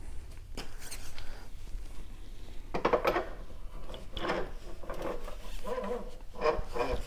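Metal parts scraping, rubbing and clinking in short bursts as a motorcycle fork leg is worked back into its clamps, with the busiest handling about three, four and six and a half seconds in.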